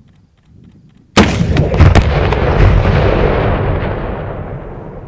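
An 84 mm AT4 recoilless anti-tank launcher fired once from the shoulder: a sudden loud blast about a second in, a few sharp cracks close behind it, then a long rumble that slowly dies away.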